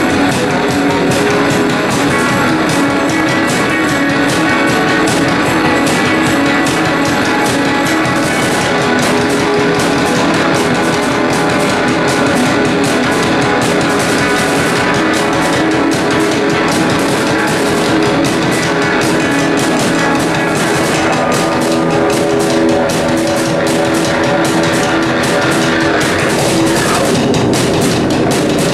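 Live instrumental rock music: guitar over two drummers beating drums with sticks, one of them a large skin-headed drum. The drumming gets busier about eight seconds in.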